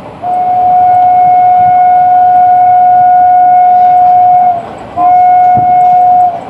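WAP-4 electric locomotive's horn sounding two blasts on one steady pitch: a long blast of about four seconds, then a short one of just over a second, each sagging slightly in pitch as it stops.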